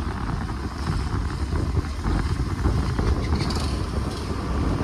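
Vehicle driving along a road: a steady low engine and road rumble.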